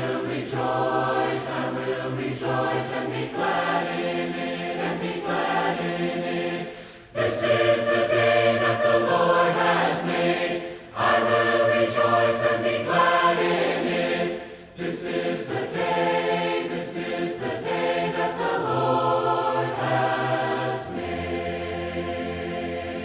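Voices singing a hymn in four-part harmony without instruments, in phrases with short breaths between them, ending on a long held chord near the end.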